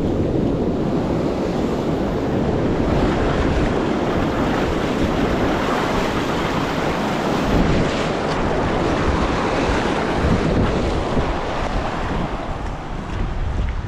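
Ocean surf washing on the beach, mixed with wind buffeting the microphone: a loud, steady rushing noise that swells and ebbs.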